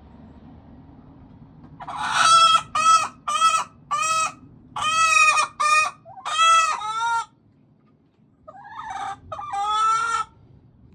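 Leghorn hen calling loudly in a run of six or seven short squawks, the last ones drawn out, then after a brief pause two more calls: the noisy calling of a hen that wants to lay.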